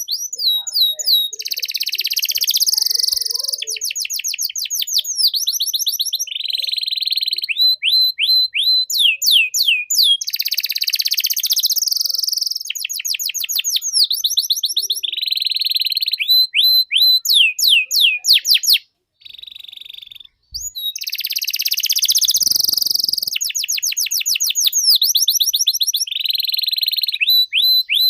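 Domestic canary singing a long, vigorous song of fast trills and rapidly repeated sweeping notes, broken by a short pause about two-thirds of the way through.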